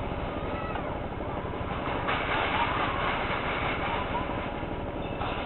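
Small ride motorboat's engine running steadily, heard from aboard the boat, with a louder hiss rising over it from about two seconds in until nearly four seconds.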